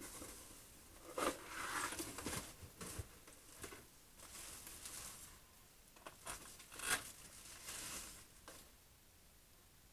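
Plastic wrapping and paper rustling and crinkling as parts are unpacked from a cardboard box. It comes in irregular bursts, with two sharper crackles, about a second in and again about seven seconds in.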